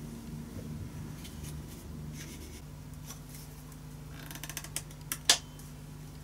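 Handling noise from a violin neck and fingerboard being clamped for gluing: a quick run of small clicks about four and a half seconds in, then one sharp click just after five seconds as the clamp goes on. A steady low hum runs underneath.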